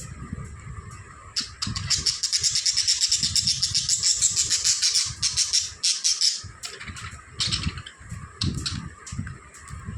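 Budgerigars chattering: a fast, dense run of high chirps from about a second and a half to five and a half seconds in, then scattered single chirps, over a low rumble.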